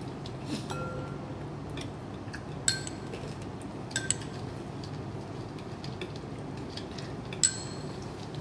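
A metal spoon clinking against a ceramic plate and a small sauce bowl: four short, light clinks with a brief ringing, about three seconds in, twice close together a second later, and once near the end. A faint steady room hum runs underneath.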